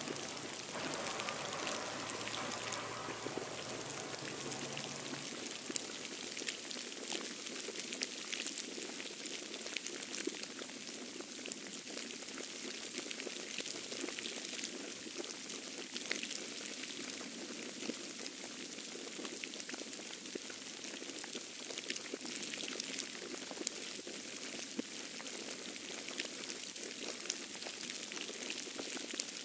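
Steady hiss and patter of falling wet snow, with scattered small ticks. A faint low hum stops about five seconds in.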